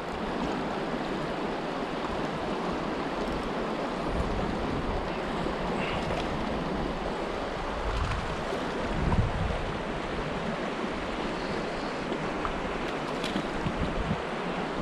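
Fast, shallow river current running steadily over rocks, with now and then a low gust of wind on the microphone.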